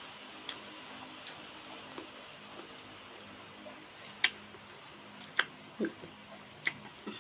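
Eating sounds of someone chewing crisp green mango: a handful of sharp, separate mouth clicks and smacks, two of them loud, over a faint steady room hum.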